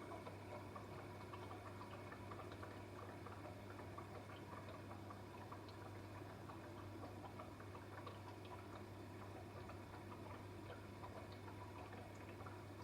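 Dishwasher running mid-cycle, faint: a steady low hum with a thin higher tone, and water spray making many small irregular ticks and drips inside the tub.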